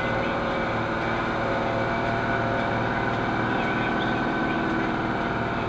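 1970 Brockway E361T truck's engine running steadily as the truck rolls slowly forward, heard from inside the cab.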